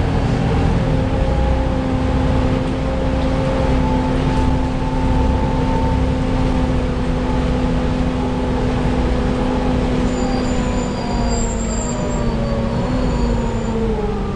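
Volvo B7TL double-decker bus's engine cooling fan whining steadily over low engine and road rumble, the hoover-like whine bus enthusiasts listen for, heard inside the upper deck. In the last few seconds the whine slides down in pitch, with faint high whistles over it.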